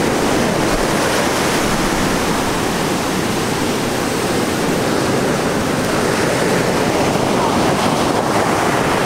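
Steady, loud wash of breaking ocean surf, with wind noise on the microphone.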